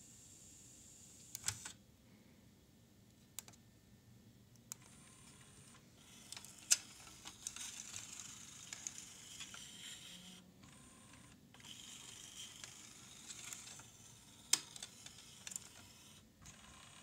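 Mitsubishi TX-L50 boombox's five-cassette changer mechanism working: sharp clicks, then a small motor and gear train whirring and rattling for several seconds, with more clacks as a cassette is shifted. The mechanism is one the owner says does not work reliably and needs fresh belts and regreasing.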